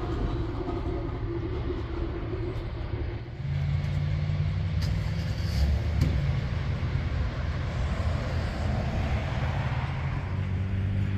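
A vehicle engine running steadily, with road traffic noise. About three and a half seconds in, a deeper, steadier engine hum comes in and grows louder.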